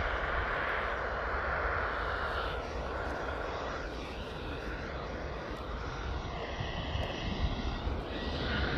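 Airbus A320 jet engines running at taxi power as the airliner rolls along the runway before takeoff: a steady rumble under a whine whose tone sweeps slowly up and down as the aircraft moves.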